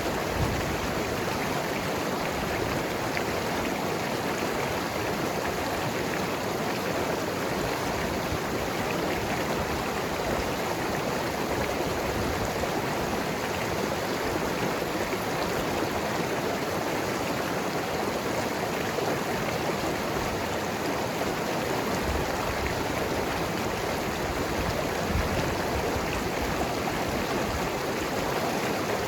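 Mountain river running fast over rocks: a steady rush of water with gurgling.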